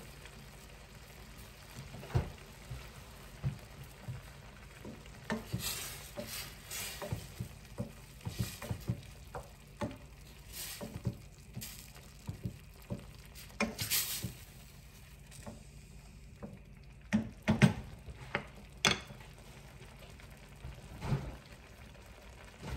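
A utensil stirring food in a frying pan: irregular knocks and scrapes against the pan, with a few short bursts of sizzling. The loudest knocks come in the last third.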